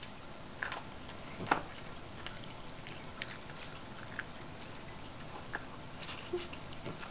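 A dog chewing and licking up cookie crumbs: scattered soft crunches and clicks, the clearest about a second and a half in.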